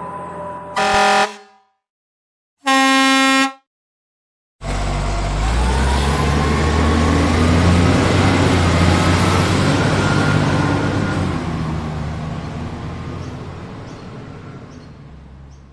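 Two short honks of a truck horn, each cut off abruptly, followed by a vehicle engine running with a slowly rising whine that gradually fades away.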